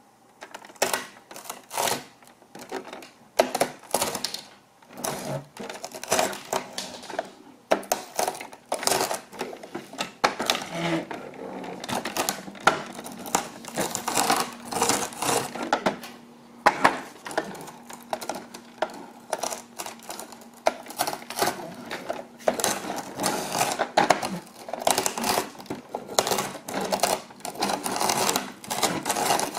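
Pretzel sticks snapping and crunching under the plastic wheels of a toy ambulance rolled back and forth over them, an irregular run of sharp cracks and crackles that comes in bursts as the wheels pass.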